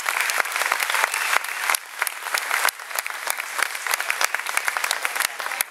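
Audience applauding: many hands clapping together, thinning out about halfway through to more scattered, separate claps.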